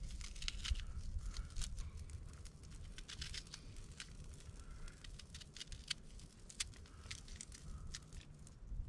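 Knife slicing through a small onion held in the hand, a quick irregular run of short crisp cuts.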